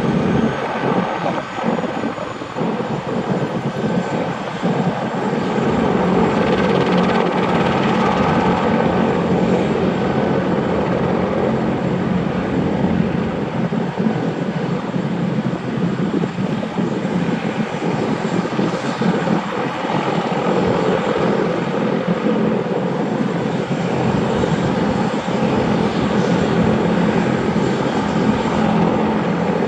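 Bell 412 helicopter's twin turbine engines running on the ground with the rotors turning, a steady turbine whine over rotor and exhaust noise.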